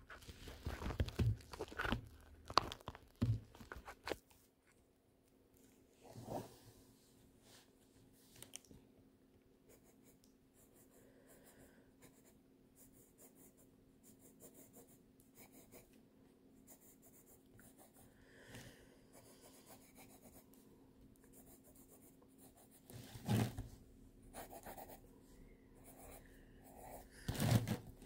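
Pencil scratching faintly on sketchbook paper in short strokes. Knocks and bumps on the table come in the first few seconds and again twice near the end, the loudest sounds here.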